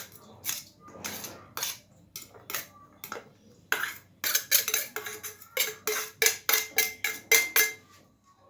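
A metal utensil clinking against a metal dish, with a short ring after each tap. A few scattered clinks come first, then a quick run of taps, about three or four a second, from the middle to near the end, as chopped onion is tipped and tapped off into the eggs.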